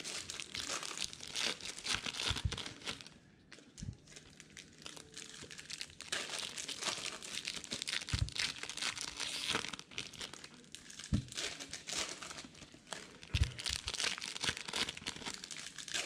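Foil baseball card pack wrappers being crinkled and torn open, with the cards handled, in irregular crackly bursts. A few soft knocks sound now and then.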